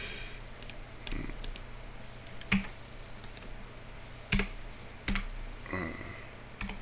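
Computer keyboard keys pressed now and then: six or so sharp separate clicks, irregularly spaced, over a steady low hum.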